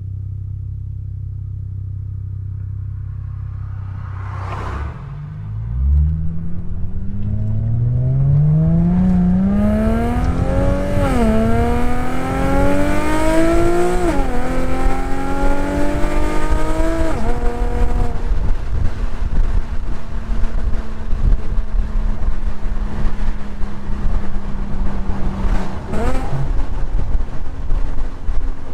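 Infiniti G37 sedan's 3.7-litre V6 through a modified exhaust, idling and then pulling away under acceleration. The engine note rises and drops back at three upshifts, then settles into a steady cruise.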